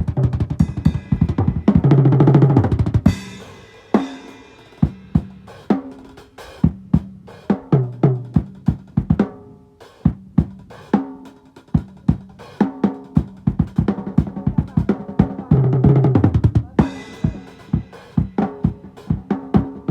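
Drum kit playing a steady beat of kick and snare hits, broken by fast, busy fills about two seconds in and again about sixteen seconds in.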